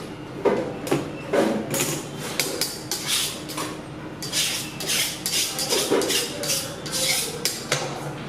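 Metal pans and utensils clattering and scraping in irregular strokes, with sharp knocks and rasping scrapes.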